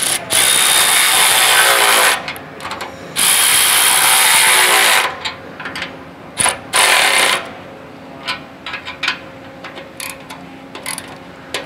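Milwaukee cordless electric ratchet running in three bursts, two of about two seconds and a short one under a second, driving the 13 mm nut of an exhaust torque clamp tight, its whine dropping as it winds down at the end of the first two runs. A few scattered clicks follow.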